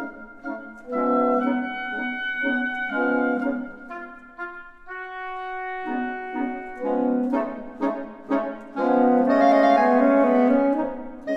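Reed quintet of oboe, clarinet, saxophone, bass clarinet and bassoon playing chamber music in a flamenco-inspired style: held chords and short notes, thinning to a few sustained tones midway, then the full ensemble louder near the end.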